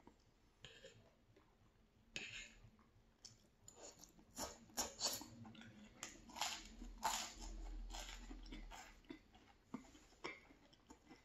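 Close-up mouth sounds of biting into and chewing toast: a series of short, crisp crunches, thickest in the middle.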